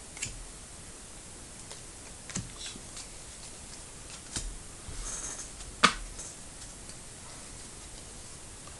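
Trading cards being handled while a pack is sorted through: a few light clicks and taps and a brief rustle, with one sharper tap a little before six seconds in.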